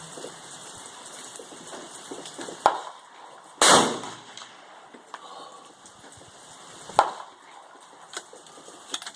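A single rifle shot a little over three seconds in, the loudest sound, dying away over about half a second. Sharper, shorter cracks come about a second before it and about three seconds after, with fainter clicks near the end.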